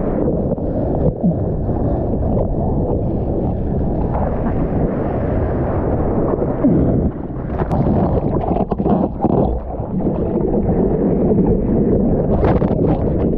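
Whitewater rushing and splashing over a surfboard, heard through a board-mounted action camera whose housing muffles it, with wind buffeting the microphone.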